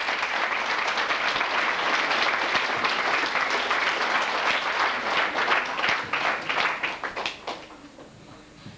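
Audience applauding with steady clapping that thins out and dies away near the end.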